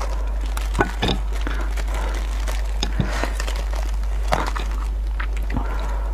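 Disposable plastic gloves crinkling and sharp, sticky clicks as hands tear apart cooked goat head meat and bone, five or six distinct clicks spread through it. A steady low hum runs underneath.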